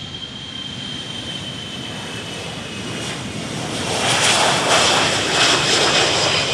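Jet aircraft flying past, its engine noise swelling to a loud rush about four seconds in.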